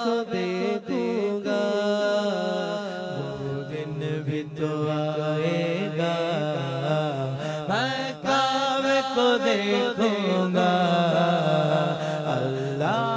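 Unaccompanied devotional naat singing: a solo voice sings a long, winding melody without clear words, over a steady low drone.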